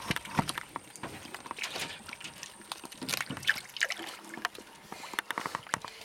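Giant otters chewing fish in shallow water: wet, irregular crunching and smacking bites with small splashes of water.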